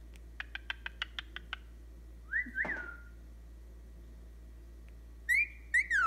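Cockatiel whistling: one whistle that rises and then falls about two and a half seconds in, then two louder up-and-down whistles near the end. Before the whistles comes a quick run of about eight short clicks.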